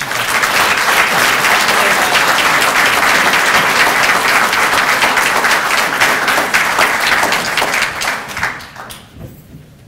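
Audience applauding: a dense, loud patter of many hands clapping that starts suddenly, holds steady for about eight seconds, then dies away.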